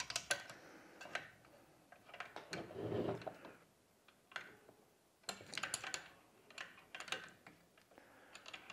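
Faint metal clicks and scrapes in small clusters: a flathead screwdriver working at the rear end of a Skidmore pump motor's shaft, trying to catch and lock it so the plastic impeller can be tightened.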